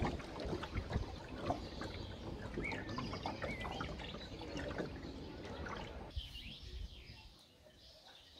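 Small birds chirping with short high calls, over a trickling, water-like noise that drops away about six seconds in, leaving the birdsong alone.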